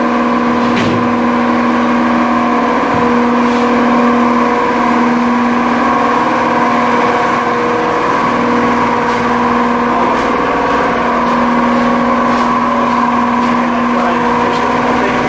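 Steady mechanical drone of paint-shop machinery running without a break: a constant hum with a few held tones over an even hiss.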